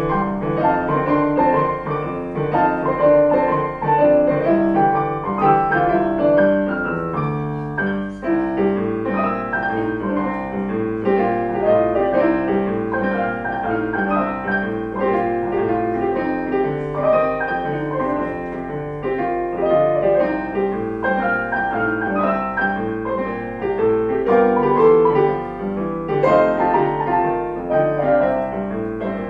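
Piano music: a keyboard piece played continuously, with one note following another and no pauses.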